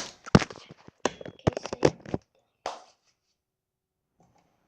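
Handling noise: a quick run of knocks, taps and rustles over the first two seconds, one last rustle, then near silence.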